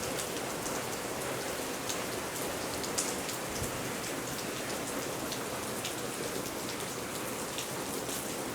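Rain squall from a hurricane's rain band: pretty decent rain falling steadily, with scattered sharp ticks of drops striking.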